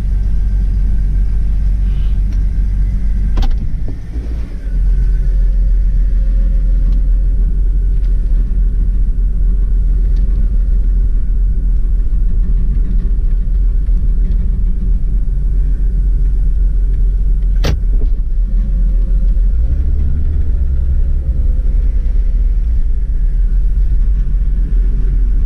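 Jeep Cherokee XJ's 4.0-litre straight-six engine running with a steady low rumble just after starting a little rough. The level dips briefly about four seconds in, and two sharp clicks come through.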